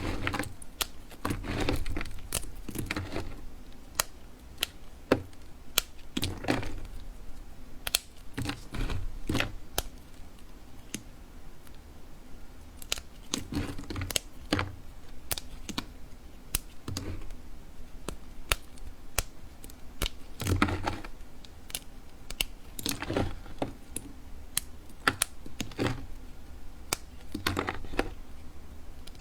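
Knife cutting through a bar of soap: repeated crisp crunching strokes, roughly one every second or two, with sharp clicks and taps between them.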